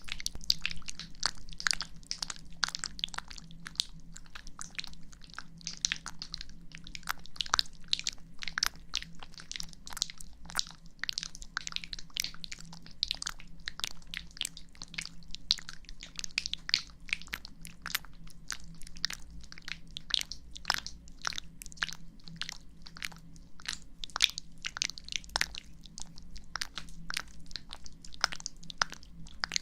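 Close-up ear-cleaning sounds: a dense, irregular crackling and scratching of a tool working in an ear, many short clicks a second.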